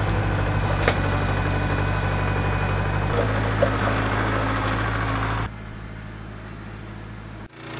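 Portable sawmill's engine running steadily, cutting lumber from a log. It drops abruptly to a lower level about five and a half seconds in and cuts out briefly near the end.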